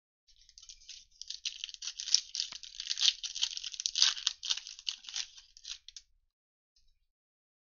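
Foil wrapper of a Panini Illusions trading-card pack crinkling as it is torn open and the stack of cards is pulled out: a dense crackle that stops about six seconds in.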